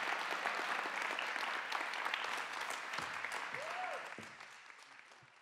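Audience applauding, a dense spread of clapping that fades out over the last second or so.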